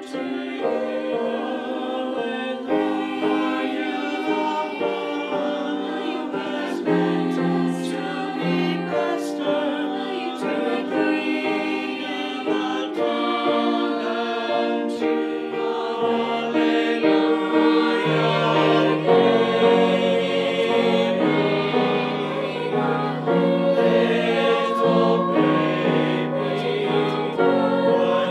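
Mixed SATB choir singing a Christmas choral anthem in several parts, accompanied by piano.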